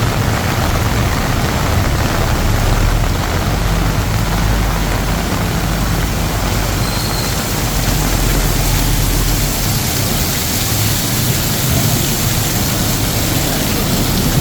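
Heavy rain pouring steadily, with the low rumble of vehicle engines in traffic underneath, strongest in the middle.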